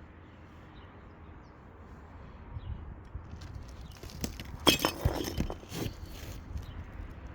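Brittle old asphalt roof shingles crackling and snapping as they are handled, a short run of sharp cracks and scrapes about four seconds in, loudest near its start.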